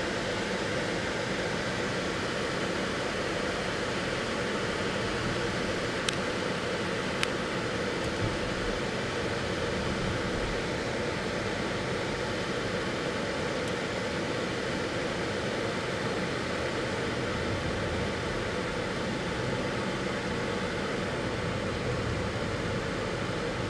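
Steady road and engine noise heard inside the cabin of a moving car, with two faint clicks about six and seven seconds in.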